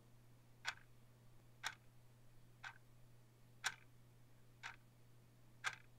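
A clock ticking faintly, one tick a second, over a low steady hum.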